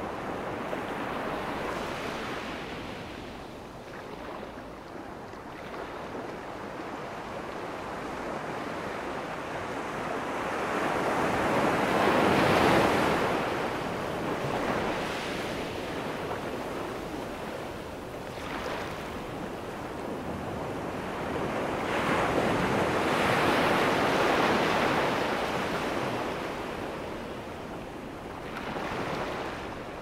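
Ocean surf breaking and washing in, a continuous rush that swells with each breaker and ebbs between them. It is loudest about twelve seconds in and again around twenty-three to twenty-five seconds, with a smaller surge near the end.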